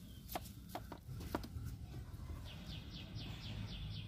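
Faint soft taps as a silicone spatula presses and smooths coconut barfi mixture in a steel tray, then from about halfway a bird chirping rapidly, about five short notes a second.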